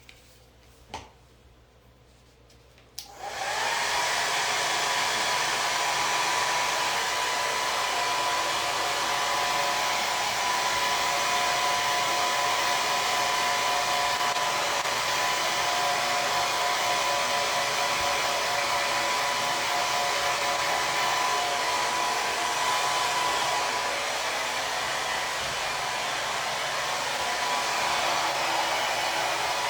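Hair dryer: after a few faint clicks it switches on about three seconds in and runs steadily, blowing with a thin, steady whine.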